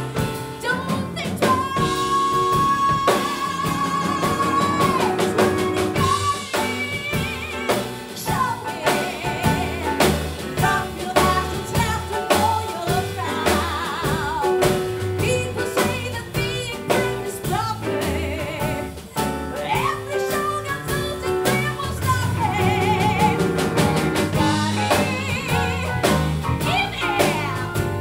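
A woman singing live with a band, drum kit prominent, over a bass line. She holds a long high note a couple of seconds in, and several later notes waver with vibrato.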